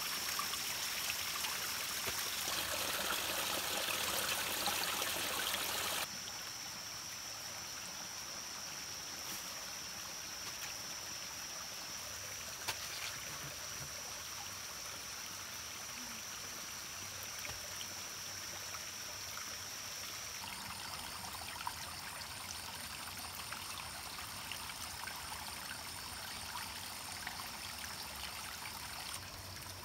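Small stream trickling and splashing down a wet rock into a pool: a steady rush of water that steps quieter about six seconds in, with a thin steady high tone above it.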